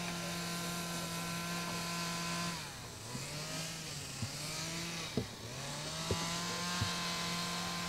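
A motor or engine runs steadily with an even hum. Its pitch sags briefly and recovers twice, about two and a half and five seconds in, and a few light knocks come in the second half.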